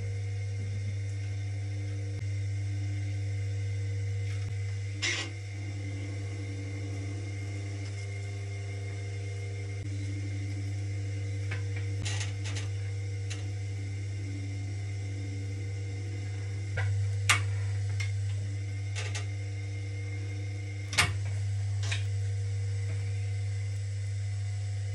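Electric potter's wheel running with a steady low hum and a faint higher whine. A few short, sharp clicks and scrapes break in now and then, the loudest two near the end.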